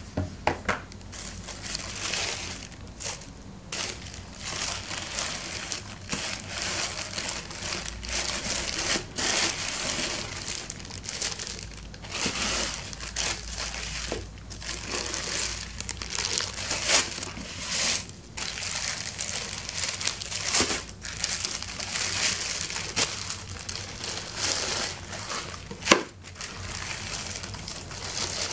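Tissue paper and a clear plastic bag crinkling and rustling as a shoe is unwrapped from its box, with many small crackles and clicks. One sharp click stands out near the end.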